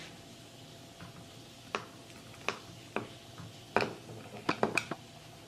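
Metal serving knife clicking against a glass dish while cutting into a set chocolate mousse: a series of sharp ticks starting about two seconds in, the loudest near the end, followed by a quick cluster of clicks.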